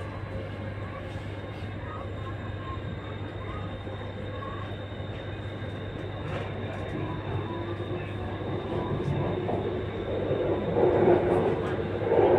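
MRT subway train running through the tunnel, heard from inside the car: a steady low hum with rolling noise. It grows louder near the end as the train slows into the station.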